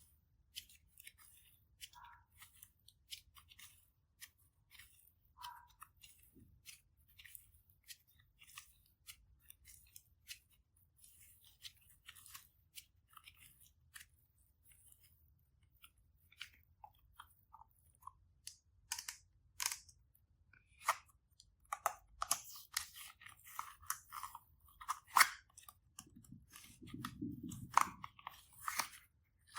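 Slime being worked by hand, making crisp little clicks and crackles, sparse at first and then quicker and louder over the last ten seconds, with a short low rumble near the end.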